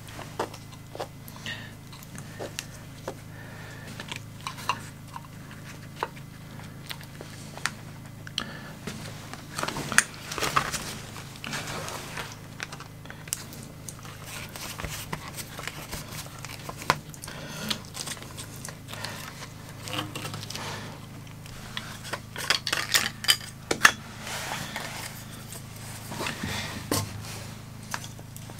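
Hand work on a pipe outlet and plastic compression fitting: irregular clicks, taps and small metal clinks with some rustling of paper or cloth. A steady low hum runs underneath, and the clicks come thickest about a third of the way in and again near the end.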